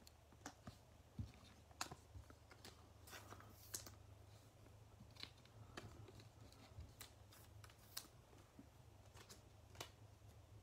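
Near silence with faint, scattered clicks and taps of trading cards and clear plastic card holders being handled and set down on a tabletop, over a low steady hum.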